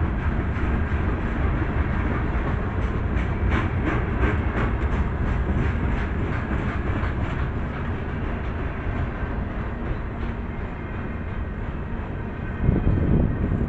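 A CSX freight train's cars rolling past in a steady rumble, with a run of sharp clicks from the steel wheels over the rail joints. A brief louder bump comes about a second before the end.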